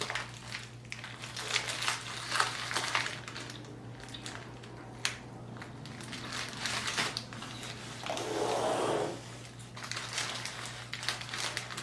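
Paper fast-food wrapping and bag rustling and crinkling as the meal is unwrapped, with scattered crunchy, crackling handling sounds.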